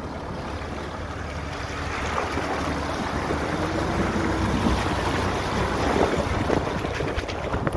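Land Rover Discovery's front tyre splashing through a muddy puddle, with wind buffeting the side-mounted microphone and a deep rumble underneath. Near the end the tyre rolls onto loose stones, with scattered clicks and crunches.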